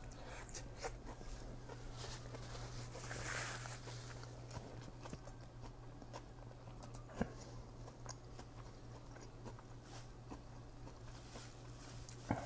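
Faint chewing with a soft paper-napkin rustle and scattered small clicks, over a steady low hum.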